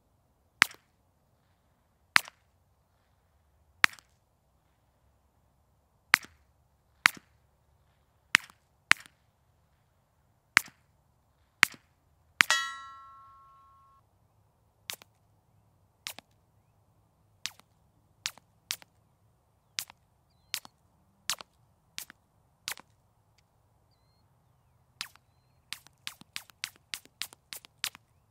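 About nine unsuppressed .22 rimfire shots with subsonic 40-grain ammunition, sharp cracks one to two seconds apart. About halfway through there is a short ringing tone. After that the shots are much quieter, fired through an AB Suppressor Little Bird and heard from 100 yards, and they end in a fast string of shots.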